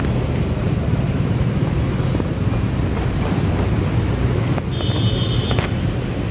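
Steady street traffic noise with wind buffeting the microphone. A brief high-pitched squeal sounds about five seconds in.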